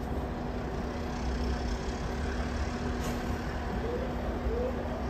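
Steady low rumble of a stationary diesel-hauled passenger train idling at the platform, with a constant hum over it. Two short rising squeaks come about four seconds in.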